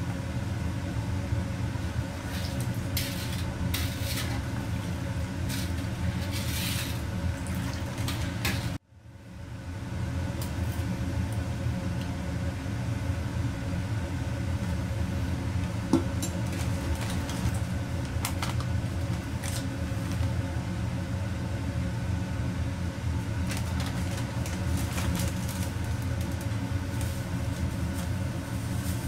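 Steady low rumble of a restaurant wok range's gas burner and extractor hood running, with scattered light clinks and scrapes of a metal ladle and tray against the wok.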